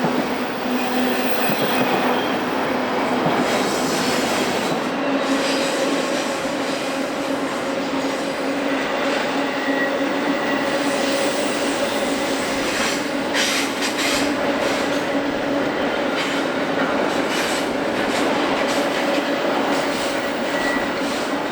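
Freight train cars rolling steadily past: a continuous rush of steel wheels on rail with faint steady ringing tones over it.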